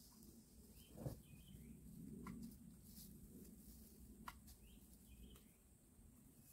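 Mostly quiet, with a few short sharp clicks and taps from a trash grabber and litter landing in a plastic trash can, the loudest about a second in, plus faint bird chirps.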